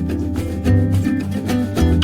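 Background music: an upbeat track with plucked guitar, a bass line and a steady beat.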